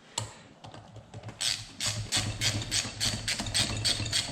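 A rapid, even run of sharp metallic clicks from hand-tool work on the motor, about five a second for nearly three seconds, over a steady low hum.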